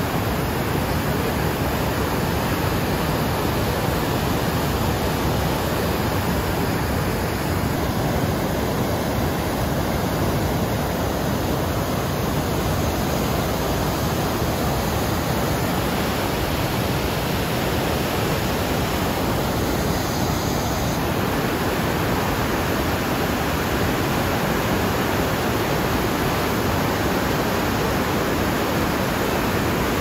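Steady rush of a swollen river pouring over a dam spillway and churning down rocky rapids.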